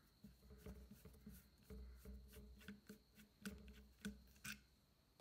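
Screwdriver turning a rusted screw out of the metal back cover of a PA horn driver unit: a run of faint, irregular clicks and scrapes, louder about three and a half to four and a half seconds in.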